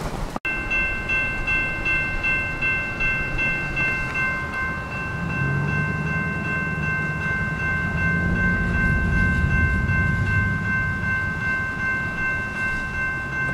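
A horn sounding one steady, unbroken note for the whole stretch, over a low rumble.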